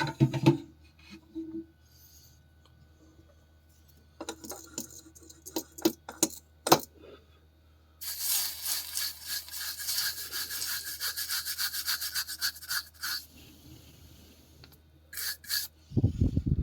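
Rapid back-and-forth rubbing against a phone's circuit board for about five seconds, small tool work during CPU removal and reballing. Scattered clicks and taps of small tools come before it, and a short knock comes at the very end.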